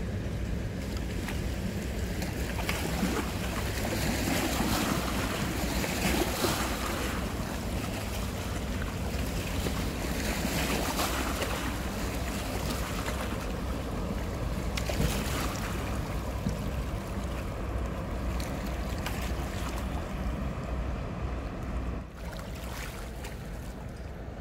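Inland cargo barge passing on the river, its diesel engine a low, steady drone under the wash of water and wind on the microphone. Near the end it drops a little quieter, leaving the barge's wake lapping against a rocky bank.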